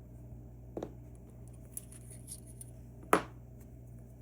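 Small metal parts of a disassembled Assa Twin V10 lock cylinder being handled, giving a few light clicks and clinks and one sharp click about three seconds in.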